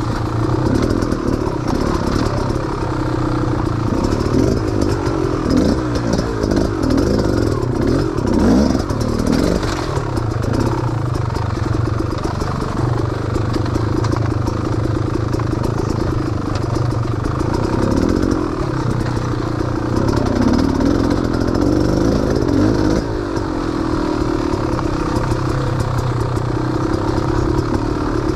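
Small off-road vehicle engine running at low speed over rough, rutted ground, its pitch rising and falling as the throttle is worked.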